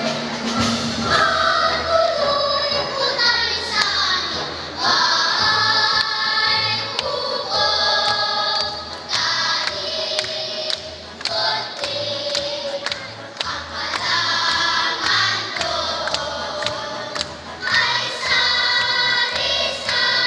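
Children's choir singing, over an accompaniment with a bass line and a steady beat.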